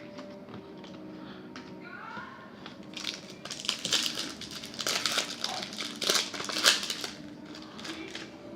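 Crinkling and crumpling of a foil trading-card pack wrapper being handled and squeezed, a dense crackly rustle from about three seconds in that dies down about seven seconds in.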